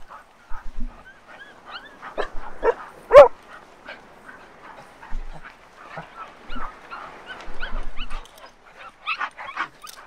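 Excited dogs on leashes yipping, whining and giving short barks over and over, with one loud bark about three seconds in.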